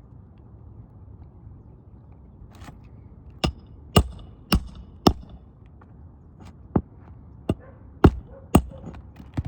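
Hammer blows driving 1 1/4 inch roofing nails through an asphalt shingle with a roofing snake: nine sharp strikes about half a second apart, in a run of four and then, after a short pause, a run of five.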